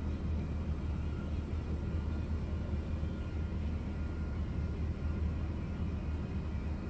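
Steady low hum of a shuttle van's engine, heard from inside the cabin.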